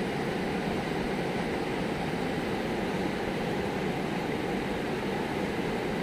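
Muddy river water rushing over a dam's weir, a steady, even rushing noise with no changes.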